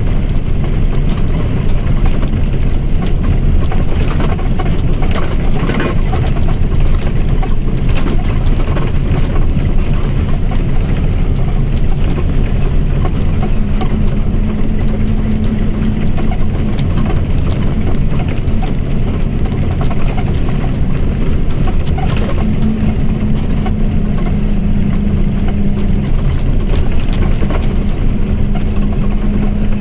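Mercedes-Benz OF1722M bus's diesel engine running steadily while the bus moves. A steady whine from the differential comes in about halfway through, drops out, and returns twice more near the end.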